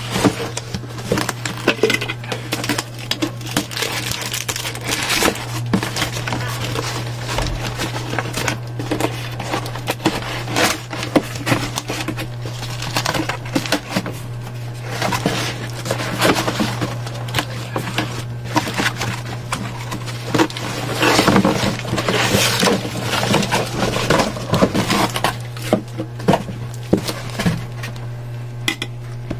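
Cardboard box being pulled apart and packing tape stripped off by hand: an irregular run of scrapes, rips and rustles, with plastic wrap crinkling near the end. A steady low hum runs underneath.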